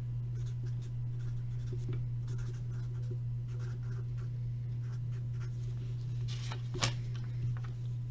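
Pen scratching across paper in short, irregular strokes over a steady low hum, with one sharp click near the end.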